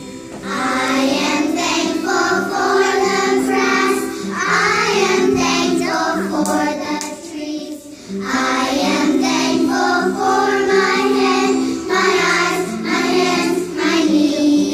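A group of preschool children singing a song together, with a short break between phrases about halfway through.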